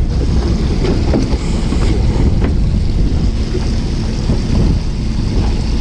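Steady wind buffeting the microphone over the low rumble of a fishing boat's engine and the sea, with a few faint clicks.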